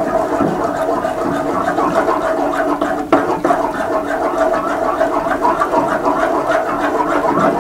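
Wooden spoon stirring a thick yogurt, egg and flour mixture in a large aluminium pot: continuous wet sloshing and squelching with light scraping against the pot, over a steady hum.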